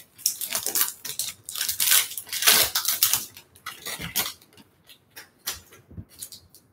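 Foil-lined trading card pack wrapper crinkling as it is torn open and the cards are pulled out, densest in the first half and thinning to scattered crackles after about four seconds.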